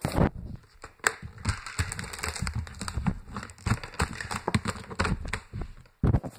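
Handling noise on a phone's microphone: irregular taps, rubs and crackles as the phone is moved with its lens covered, with a louder burst of rubbing near the end.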